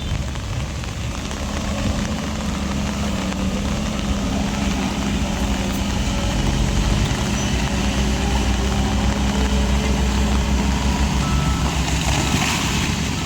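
Heavy diesel construction machine engine running steadily under load, growing a little louder toward the middle, with a few faint back-up alarm beeps near the end.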